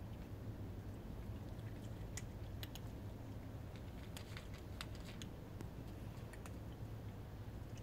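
A kitten crunching dry kibble: scattered sharp crunches, sometimes two or three close together, over a steady low hum.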